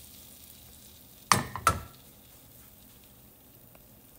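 Beaten eggs sizzling faintly in a hot non-stick frying pan, with two sharp knocks a quarter second apart about a second in.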